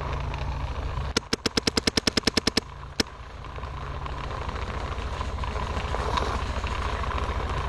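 Paintball marker firing a rapid string of about fifteen shots, roughly ten a second, then one more single shot, over a steady low rumble.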